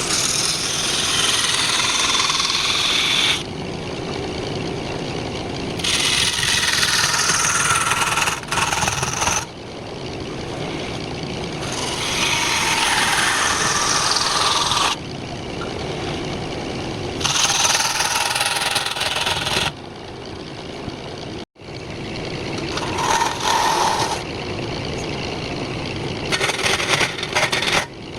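Wood lathe running while a gouge hollows out the spinning wood. Loud scraping and hissing from the cuts alternates every few seconds with the quieter steady hum of the lathe between passes, making about six cuts.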